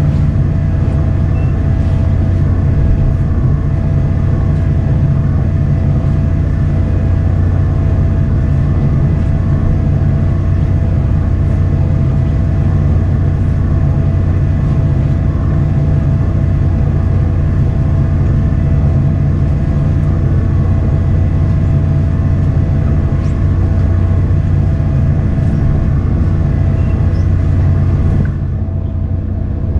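A fishing boat's engine running steadily, a low, even drone that dips slightly near the end.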